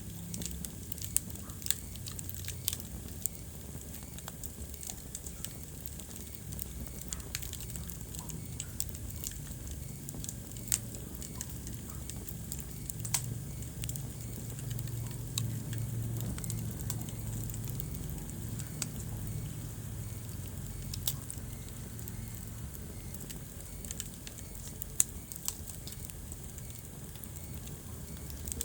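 Wood fire in a fireplace crackling, with irregular sharp pops over a low rumble of flames. The rumble swells a little around the middle.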